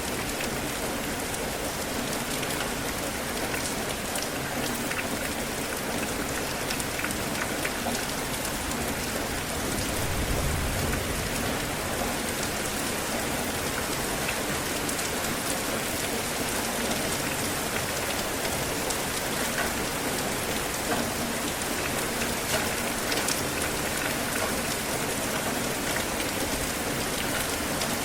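Steady heavy rain falling on a surface, an even hiss dotted with individual drop ticks. About ten seconds in, a brief low rumble swells under it.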